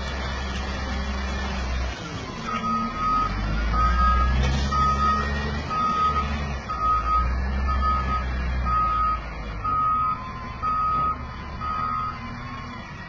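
Diesel engine of a heavy earth-moving machine working, its low rumble swelling and easing as it takes load. From a couple of seconds in, its reversing alarm beeps on one pitch about once a second, ten times, stopping near the end.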